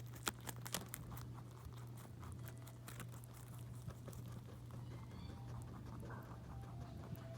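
A few crisp munching crunches in the first second, then soft chewing over snoring in the background.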